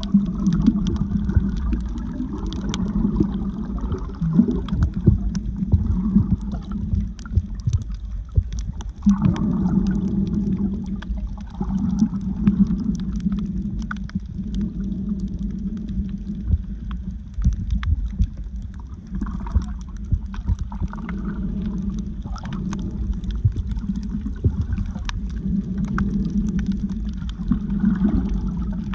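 Water heard underwater while snorkeling: a muffled low rumble and gurgling that swells and fades, with faint crackling clicks throughout.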